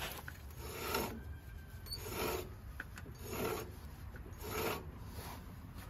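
Rasping rub repeated about every second and a bit, five strokes in all, as the rear CV axle and freshly filled differential are turned by hand to work the 75W-140 gear oil through.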